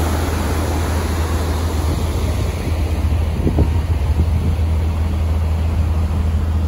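Steady low drone of a car ferry under way, with wind noise on the microphone and the rush of the churning wake.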